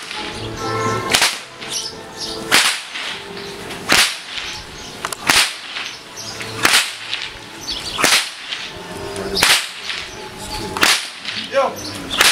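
A Hungarian horse-herder's long whip cracking sharply about every second and a half, some nine cracks in a row. Each crack is the short tip of the lash breaking the sound barrier.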